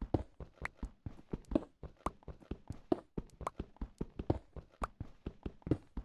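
A quick, irregular run of knocks and taps, several a second.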